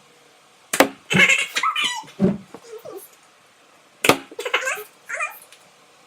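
Two sharp Nerf blaster shots, about a second in and about four seconds in, each followed by short high-pitched vocal sounds.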